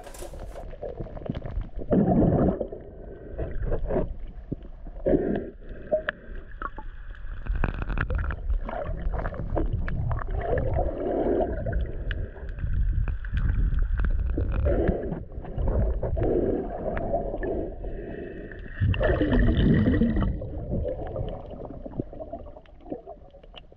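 Underwater sound on a submerged action camera: muffled rushing and gurgling of water with several louder swells, the biggest about two seconds in and near the end. A faint steady whine runs through the middle.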